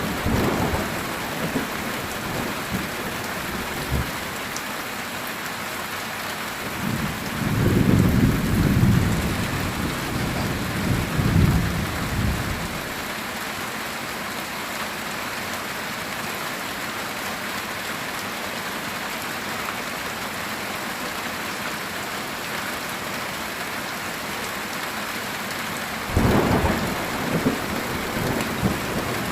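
Heavy rain pattering steadily on a metal tin roof, with two low thunder rumbles: a long one about a quarter of the way in and another starting near the end.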